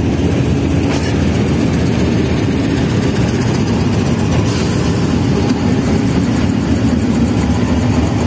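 Pakistan Railways diesel locomotive's engine running with a steady low drone as the locomotive moves slowly alongside the platform.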